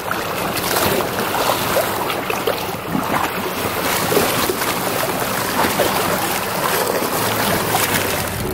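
Lake water sloshing and splashing among shoreline boulders as a Labrador retriever wades and paddles through the rocky shallows, a steady irregular wash of small splashes.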